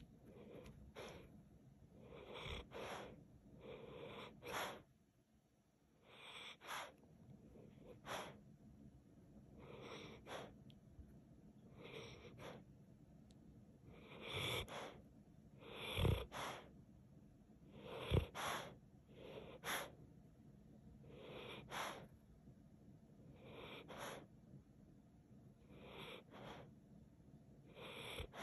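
Sleeping dog breathing out in short, noisy puffs through its nose and lips, one or two every couple of seconds, with two louder puffs past the middle.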